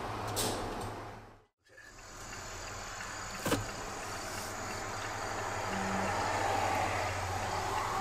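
Steady road and engine noise heard inside a moving car: a low rumble with tyre hiss that builds slowly. It drops out briefly about a second and a half in, then returns.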